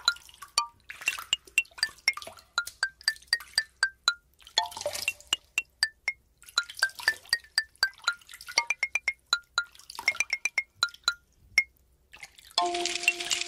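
Tiny plastic micro building bricks rattling and clicking as fingers rummage through a loose pile, in several short spells. Under it runs light background music of quick, high plinking notes.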